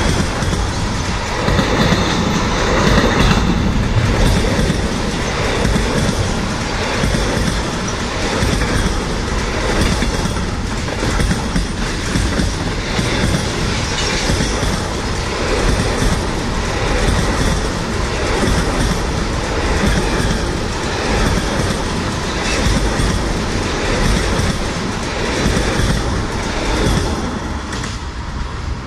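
A long freight train of covered sliding-wall wagons rolls past close by, its steel wheels clattering over the rails in a steady run of clickety-clack. The noise eases near the end as the last wagon goes by.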